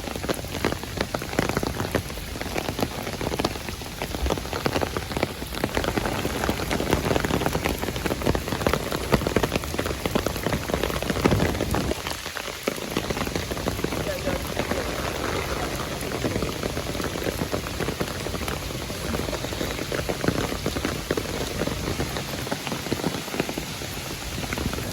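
Rain falling steadily, a dense mass of drops striking a surface, starting abruptly.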